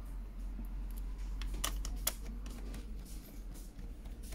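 Small, irregular clicks and ticks of a hand screwdriver turning small screws into a laptop's plastic bottom chassis, over a steady low hum.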